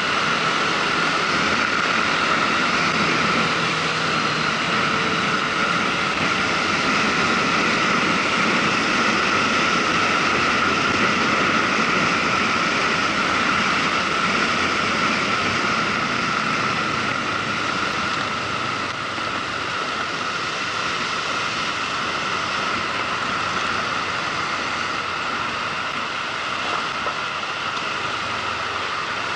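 Steady rush of wind over the microphone of a moving motorcycle, with its engine and road noise running underneath; slightly quieter from about two-thirds of the way through.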